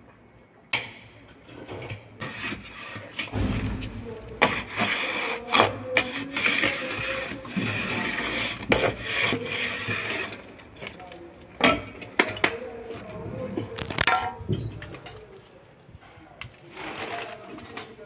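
Bricklaying sounds: hollow clay bricks and mortar being knocked and scraped, with many sharp taps and a long stretch of scraping in the middle.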